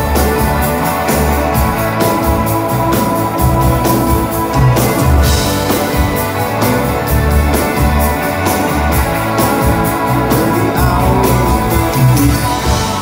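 Live rock band playing at full volume: electric guitars, bass guitar and drum kit, with a steady driving beat.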